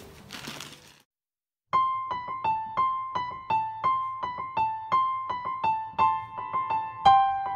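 Background music: a gentle keyboard melody of evenly spaced, bell-like piano notes. It starts after a brief moment of dead silence about a second and a half in.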